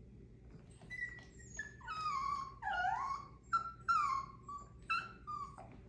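A Chihuahua whining: a run of short, high whimpers and longer whines, most falling in pitch and one rising, starting about a second in and stopping just before the end.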